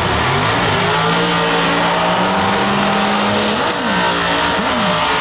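Drag-race car doing a burnout: the engine is held at high revs while the rear tyres spin in a broad hiss. Near the end, the revs rise and fall three times.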